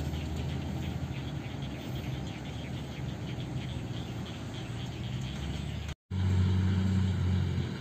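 Diesel dump truck engine running at low speed as the loaded truck crawls along a muddy haul road, with insects chirping rapidly and regularly. About six seconds in, after a short break in the sound, diesel truck engines run louder and drone more deeply, easing off near the end.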